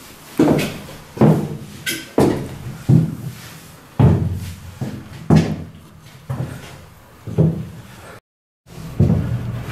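Footsteps thudding on the fiberglass deck inside a boat hull, about one a second, each with a short hollow boom. The sound cuts out for about half a second near the end.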